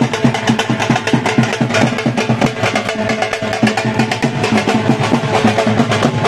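Rajasthani folk music led by a dhol drum beaten in a fast, steady rhythm.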